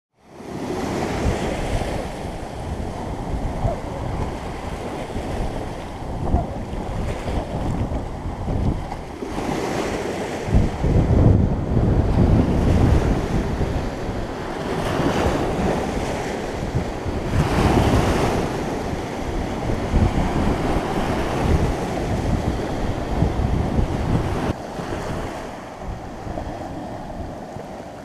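Wind buffeting the microphone: a steady rushing noise with uneven low rumbling gusts, easing near the end.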